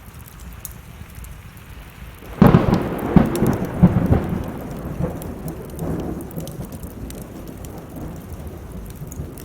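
A thunderclap about two seconds in: a sudden loud crack that rolls on as rumbling for several seconds. Underneath, steady rain and the small pops of a wood fire crackling.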